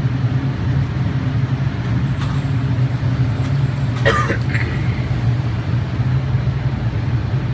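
Steady low mechanical drone with a deep, even hum, like an idling engine, with a few faint clicks and a brief sharper sound about four seconds in.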